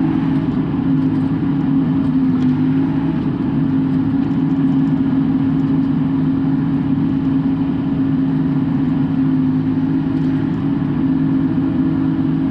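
Bobcat E42 mini excavator's diesel engine and hydraulics running steadily, heard from inside the cab, as the machine digs out a tree stump.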